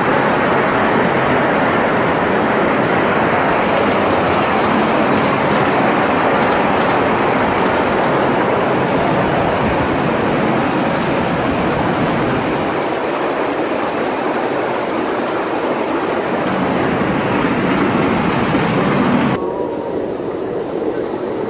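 Ride-on miniature railway train rolling along its track: a loud, steady noise of wheels running on the rails. It drops off abruptly a couple of seconds before the end, leaving a quieter running sound.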